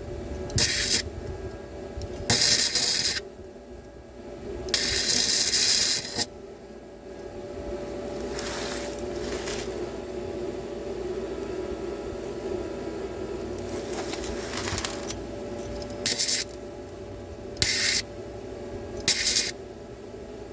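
Flux-core MIG welding in short bursts: the arc crackles on and off six times, the longest burst about a second and a half, as the welder goes back over a spot that burned through. A steady machine hum runs between the bursts.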